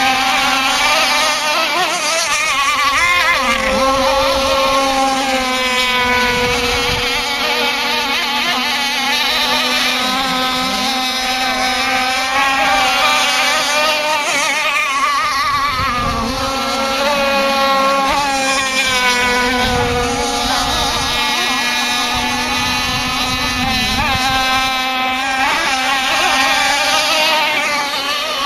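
Radio-controlled model speedboat running flat out on the water, a continuous buzzing engine note that wavers up and down in pitch as the boat laps.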